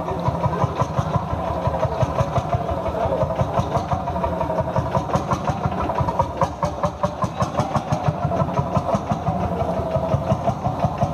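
Old Landini tractor engine running slowly and steadily, with even thumps about five times a second.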